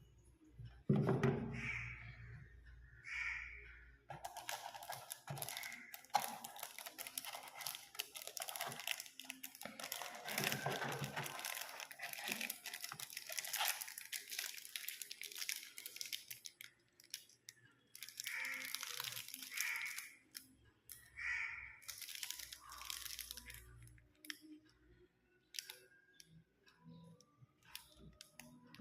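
Packaging of a hair trimmer being handled and opened: a long stretch of continuous crinkling and tearing, then shorter irregular rustles.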